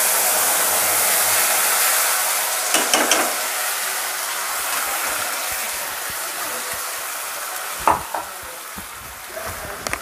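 Wet green chilli, onion and garlic paste sizzling loudly in hot oil in a kadai, the hiss fading slowly as it settles. A spatula stirs it with a few scrapes and taps, about three seconds in and again near eight seconds.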